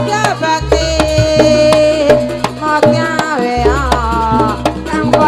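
Live Javanese jaranan ensemble music: sharp hand-drum (kendang) strokes over a held, bending melody line, with deep low tones that come and go.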